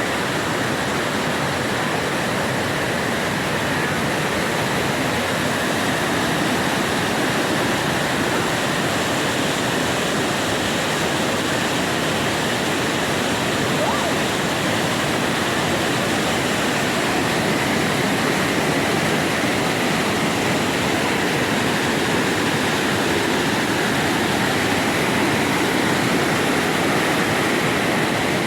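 A waterfall's steady rush of falling water, unbroken throughout.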